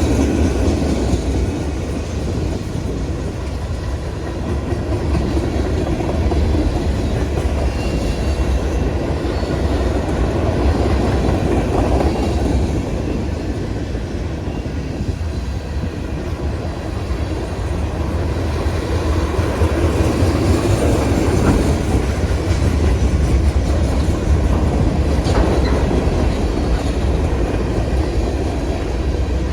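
CSX freight train's cars rolling past, a steady noise of steel wheels on rail.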